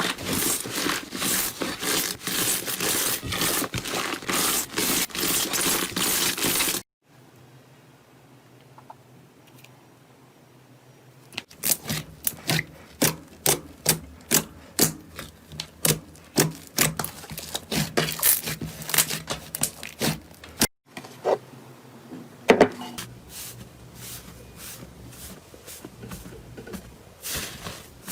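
Slime being pressed and squeezed by hand, making crackling clicks and pops. There are three separate stretches split by sudden cuts: dense rapid crackling first, then a short near-quiet gap, then sharp pops about two or three a second, growing sparser near the end.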